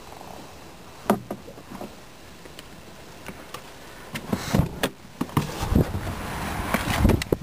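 A car's rear door being unlatched and pushed open from inside, with handling knocks and rustling as someone climbs out, the sound opening up to outdoor air and a loud thump near the end. A few sharp clicks about a second in.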